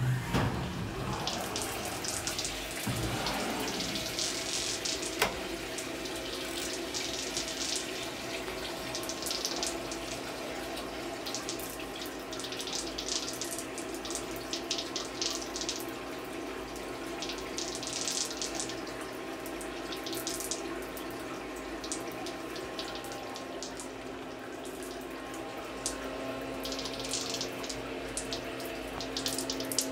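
Flood coolant splashing and pouring inside a Fadal CNC mill's enclosure, surging at times, over the machine's steady hum. There is one sharp tick about five seconds in.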